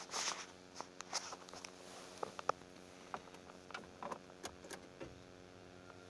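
Irregular clicks, knocks and rubbing from a hand-held phone camera being moved about inside a car cabin, over a faint steady hum.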